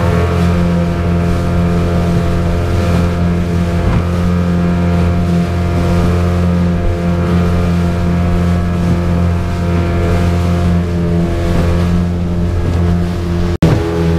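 Small fishing boat's engine running steadily at speed, a constant even drone. It breaks off for an instant near the end.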